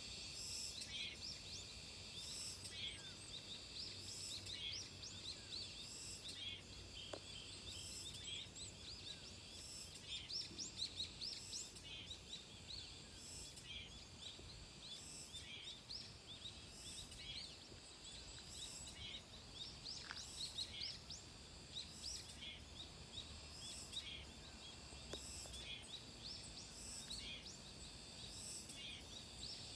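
Cicadas singing in summer: a high, pulsing buzz that repeats about once a second, with small birds chirping over it.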